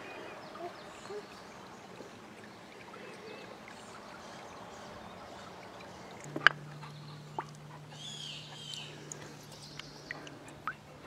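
A shallow stream trickling faintly, with birds chirping twice, about eight seconds in, and a few sharp clicks, the loudest just past six seconds in.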